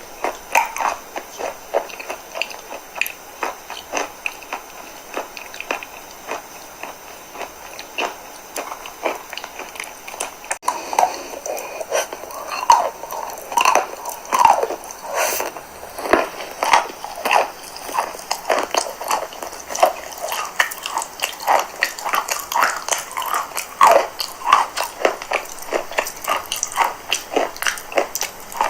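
Chalk being bitten and chewed: a dense, irregular run of sharp, crisp crunches, several a second.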